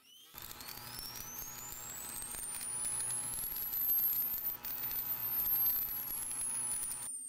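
Cartoon explosion sound effect: a rushing roar with a high whine that rises in pitch for about four and a half seconds and then falls away, cutting off suddenly near the end.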